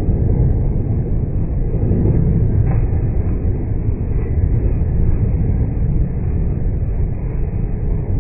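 Loud, steady low rumbling noise of a monsoon storm, wind and rain, picked up by a phone's microphone, with no single crack or bang.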